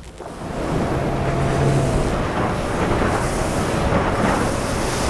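Small fishing boat running across open water, its motor getting louder about half a second in and then holding steady, with heavy wind buffeting the microphone and water rushing past the hull.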